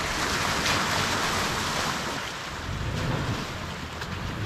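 Toyota 4Runner's tyres ploughing through a muddy puddle, water splashing and sloshing. The splash is loudest in the first two seconds and eases off, with a lower rumble in the second half.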